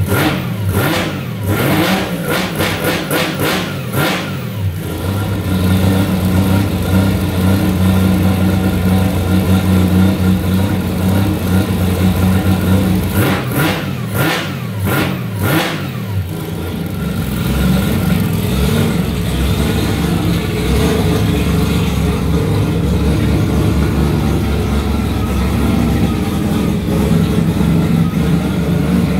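Turbocharged three-rotor rotary engine of a Mazda RX8 drift car idling cold, with runs of sharp cracks near the start and again around the middle, and a rougher, noisier run in the later part.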